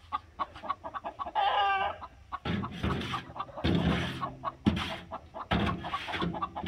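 Buff Orpington hens clucking, with one drawn-out call about a second and a half in and rougher, harsher calls after it. This is the restless fussing of hens wanting to go in to roost.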